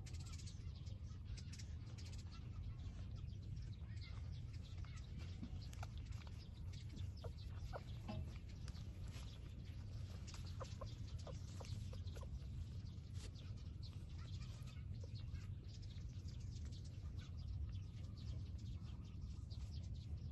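Short, faint animal calls and small clicks scattered over a steady low rumble.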